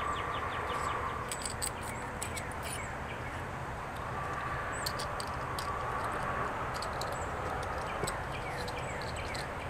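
Light clicks of small steel Martini-Henry breech-block parts being picked up and handled, over steady outdoor background noise with birds chirping now and then.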